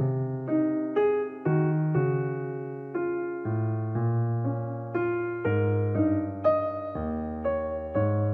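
Background music: a piano-like keyboard playing chords, a new chord struck about every half second and left to ring and fade.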